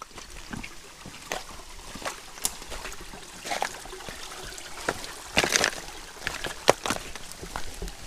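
Footsteps on the loose flat stones of a rocky creek bed: irregular sharp clacks and scuffs, loudest a little past halfway, over a steady trickle of water.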